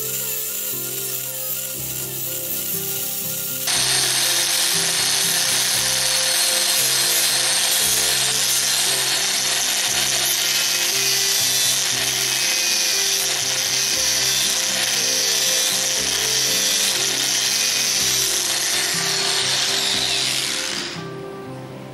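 Handheld electric rotary tool with a sanding disc grinding across the edges of wooden model-boat frames, a steady high hiss of abrasive on wood over the motor's whir. It comes in abruptly and loud about four seconds in and dies away just before the end, with background music underneath.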